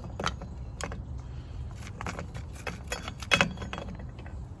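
Scattered light clicks and clinks as the parts of a chainsaw's recoil starter are handled while the pulley is being wound, over a low steady hum.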